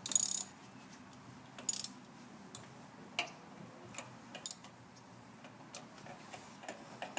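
Metal hand tools working on the engine: two short raspy bursts, then scattered light clicks, in the manner of a socket ratchet.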